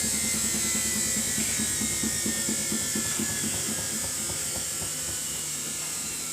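Samsung washing machine running, its motor whining steadily under a regular drum rhythm of about four beats a second, slowly getting quieter.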